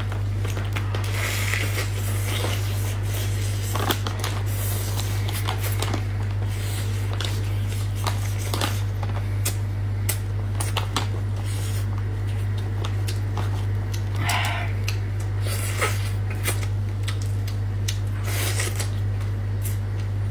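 Cooked crab shell cracking and snapping as it is pulled apart by hand, heard as irregular sharp clicks and crackles, with eating sounds. A steady low hum runs underneath.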